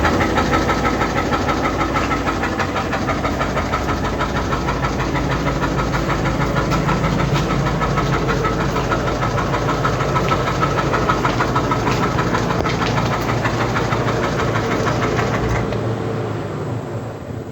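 An engine running steadily with a rapid, even pulse, fading away near the end.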